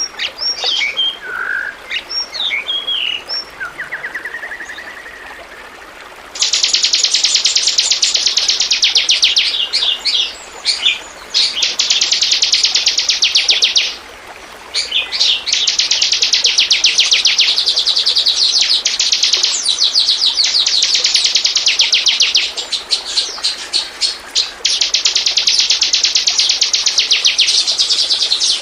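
Bar-winged prinia (ciblek) singing: a few scattered short chirps, then from about six seconds in long bouts of a fast, high trill, broken by short pauses.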